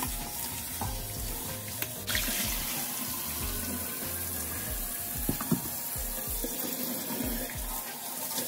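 Kitchen tap running into the sink as raw pork is rinsed in a bowl under it, a steady rush of water that grows stronger about two seconds in.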